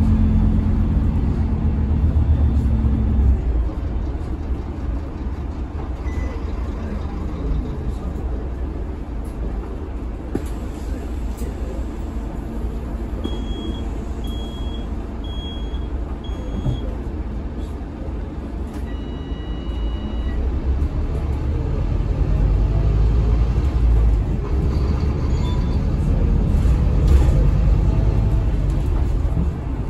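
Cabin sound of a Scania K320HB bus with its DC9 five-cylinder diesel: the engine and drivetrain run louder at first, drop to a quieter steady run through the middle, then grow louder again in the last third as the bus pulls on. Midway there is a run of four short high beeps, followed a few seconds later by one brief high tone.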